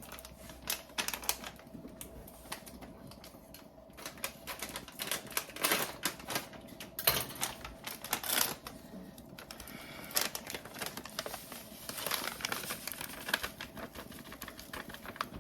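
A potato packet being opened and emptied into the pot: a dense run of small crinkles and clicks, in irregular clusters.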